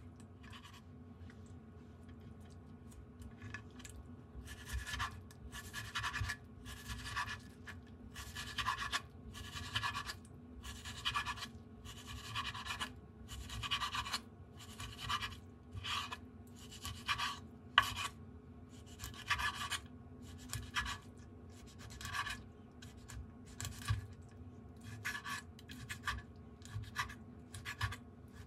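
Chef's knife slicing a pollock fillet on a bamboo cutting board: a regular run of short scraping strokes, about one a second, as the blade draws through the fish and across the wood, starting about four seconds in.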